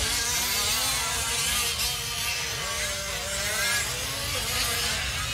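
Several 1/5-scale RC off-road trucks' small two-stroke gas engines buzzing, their pitches overlapping and rising and falling as they rev and ease off.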